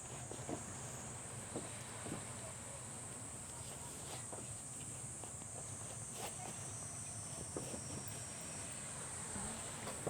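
Steady high-pitched insect chirring, with scattered light taps and knocks.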